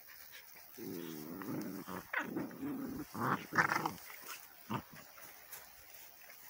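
Labrador and Borador puppies growling in play-fighting: a low, wavering growl lasting about three seconds, broken by louder, sharper bursts about two and three and a half seconds in.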